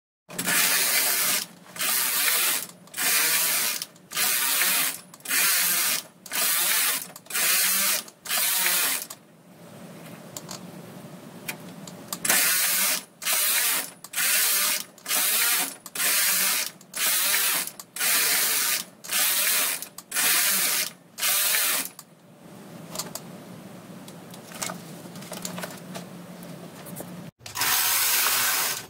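Brother KH710 knitting machine carriage pushed back and forth across the needle bed, knitting thicker yarn on every other needle. Each pass is a short, loud clatter of the carriage over the needles, coming in a quick even rhythm: about eight passes, a pause of a few seconds, about eleven more, then a single pass near the end.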